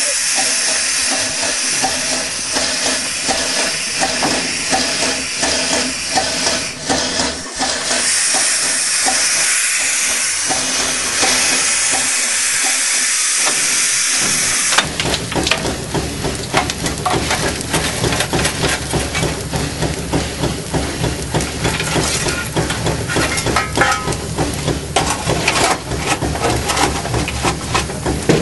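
Two-foot-gauge steam locomotive blowing off steam with a steady loud hiss. About halfway through the hiss gives way abruptly to a lower rumble with frequent clanks and clicks.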